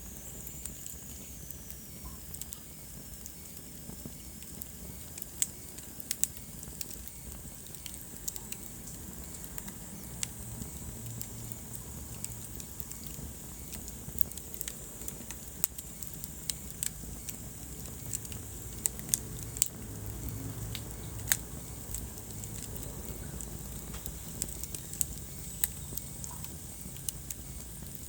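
Wood fire crackling in a fireplace: a steady low rumble of flame with sharp pops and snaps at irregular intervals.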